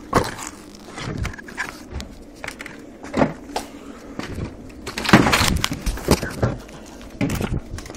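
Irregular knocks, scrapes and rustling from someone moving over rubble with a handheld camera, with a louder rush of noise about five seconds in.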